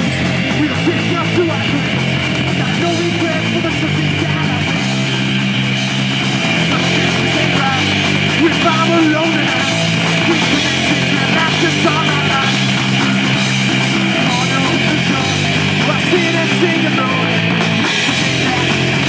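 Live punk rock band playing at full volume: distorted electric guitar, electric bass and a drum kit driving a fast song without a break, the bass line moving from note to note.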